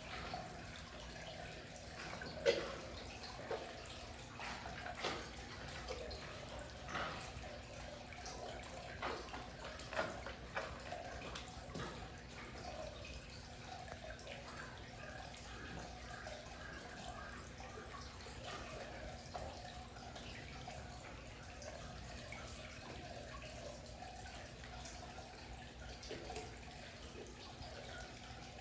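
Amur tiger chewing and tearing raw meat: irregular wet smacks and crunches, most frequent in the first twelve seconds or so, over a faint steady background hum.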